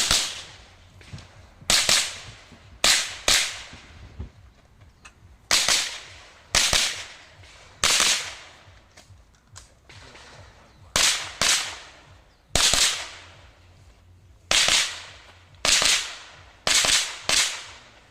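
A string of single .22 rimfire rifle shots fired in an IPSC Mini Rifle stage: about fourteen sharp cracks, each with a short echo, at an uneven pace of roughly one a second with brief pauses between groups.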